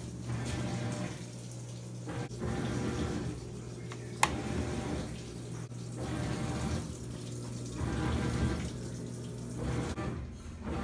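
Top-loading washing machine running water in to fill, the rushing water swelling and fading every second or two over a steady low hum. One sharp click about four seconds in.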